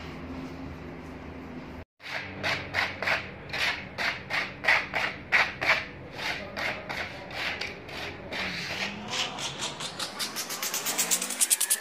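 Small trowel scraped back and forth over textured decorative plaster in even strokes, about two or three a second, quickening to rapid short strokes near the end as the grainy finish is smoothed.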